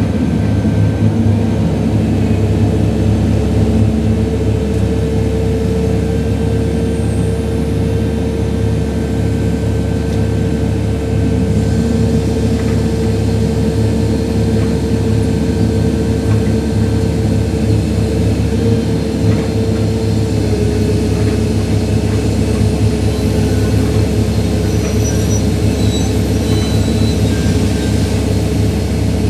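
Heavy diesel engine of a concrete mixer truck running steadily: a low rumble with a steady whine above it.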